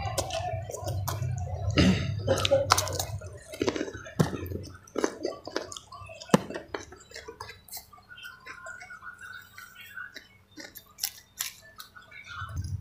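Wet chewing and lip-smacking of a person eating rice by hand, a string of many small clicks and smacks. A low hum runs under the first four seconds or so.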